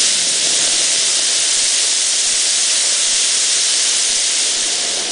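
A large potassium nitrate–sugar ('rocket candy') rocket motor firing in a static test. It starts abruptly and burns as a loud, steady hiss with no pops or bangs: the motor is burning cleanly without blowing up.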